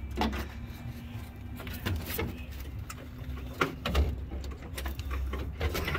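Socket wrench clicking and knocking on a rusted bolt behind a bus's steel inner panel: about half a dozen sharp clicks at irregular spacing, over a steady low hum. The bolt may be stripping or spinning in place.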